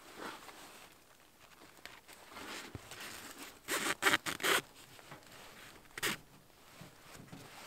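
Short rasping scrapes of a wooden stick being worked against tarp fabric and wooden poles by gloved hands: a quick cluster of about four about four seconds in, and one more near six seconds.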